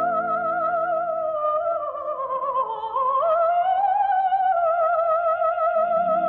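A soprano voice singing a slow wordless melody in long, high held notes with a wide, even vibrato, over soft sustained orchestral chords.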